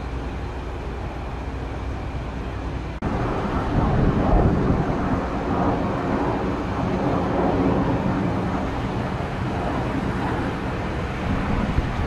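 Diesel train engine running steadily with a low rumble. It breaks off abruptly about three seconds in, and a louder stretch of engine and rolling noise follows.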